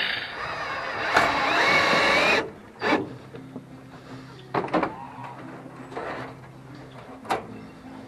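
A farm bird calls loudly with a wavering pitch for about two and a half seconds. A few separate sharp knocks follow over a faint low steady hum.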